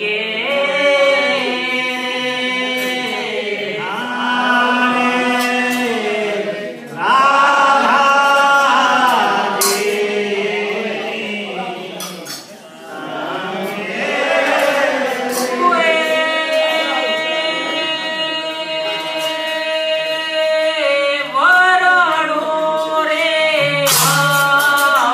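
Group singing of a devotional bhajan, voices moving together in long held notes that step and glide slowly in pitch, with a short break in the middle.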